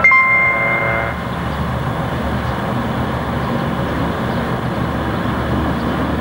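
The last note of a station bell chime rings for about a second and stops. Under it and after it, a diesel railcar's engine runs steadily with a low rumble.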